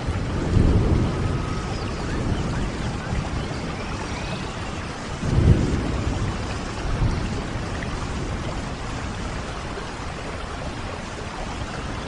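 Steady rain with rolling thunder: a low rumble swells about half a second in and a stronger one around five and a half seconds in, then dies away.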